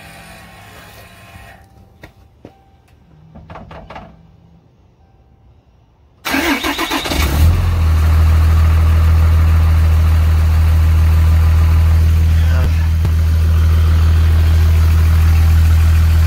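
Diesel pickup engine cranking and catching about six seconds in, then settling into a steady idle. It is the first start after a fuel filter change, with the fuel system just primed.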